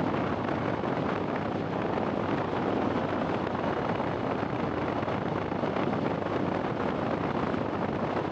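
Steady wind rush and road noise on an unshielded camera microphone while riding a Honda CBR650R motorcycle, drowning out the engine.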